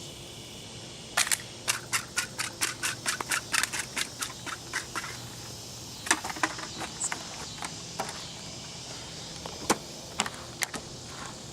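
A rapid run of sharp clicks and crackles, about five a second, for about four seconds, then a few scattered clicks.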